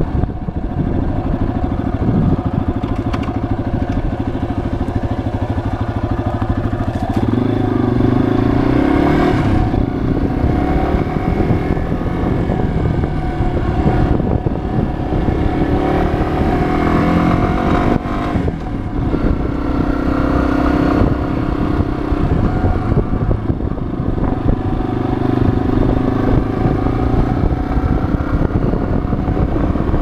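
Yamaha XT250 dual-sport motorcycle's single-cylinder four-stroke engine running on the road, its revs rising and dropping back several times as it accelerates and eases off.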